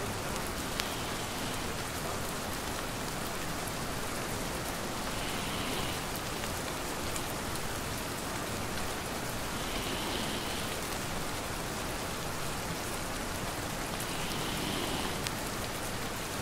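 Steady rain pattering, with scattered sharp drop ticks.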